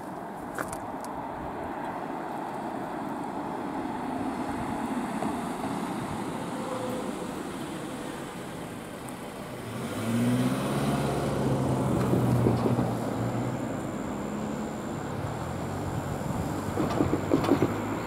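Road traffic: cars passing on the road, with a vehicle's engine running close by from about ten seconds in, loudest a couple of seconds later.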